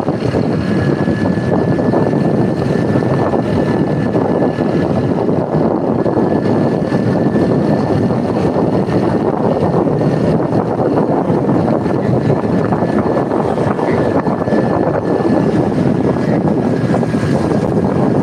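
Steady rush of wind on the microphone from fast forward travel, with a thin, steady high whine running under it.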